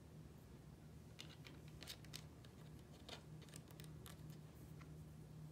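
Faint scattered clicks and light taps of small miniature-kit pieces and fingertips being handled on a cutting mat, mostly between about one and five seconds in, over a steady low hum.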